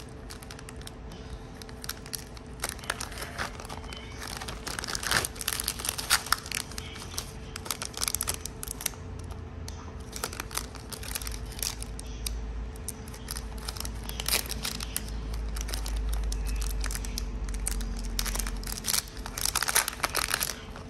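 Thin clear plastic packaging bags crinkling and rustling in the hands as they are pulled open and handled, in irregular crackly bursts.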